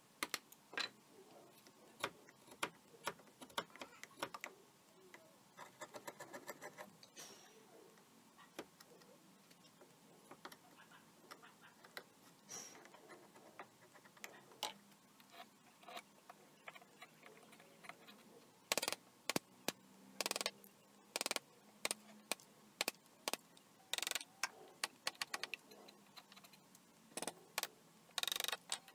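Bench chisel paring a tenon cheek by hand in straight-grained wood: faint, short, crisp cutting clicks and snaps as the blade slices off thin shavings. They are sparse at first and come in quick runs in the second half.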